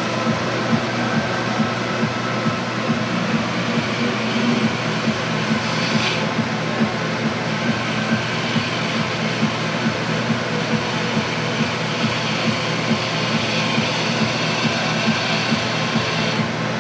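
Wood lathe running steadily while turning a pen, a motor hum with a hiss above it. The hiss shifts briefly about six seconds in and again near the end.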